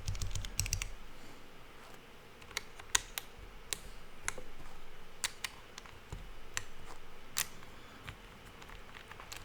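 Single keystrokes on a Monsgeek M1 V5 TMR keyboard fitted with Geonworks Raw HE magnetic switches on one half and Cherry MX Black Hyperglide mechanical switches on the other. The keys are pressed one at a time as separate sharp clacks, with a quick run of a few presses at the start.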